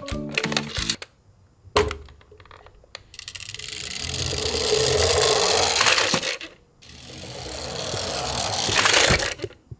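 A toy garbage truck's wheels rolling over wood, twice: each time a whirring rumble grows louder over about three seconds and then cuts off suddenly. A few light clicks of the plastic toy being handled come first.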